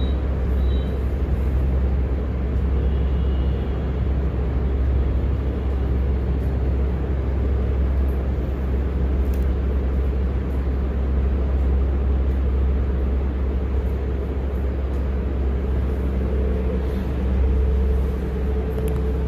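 Steady low rumbling hum with a hiss over it, unchanging throughout.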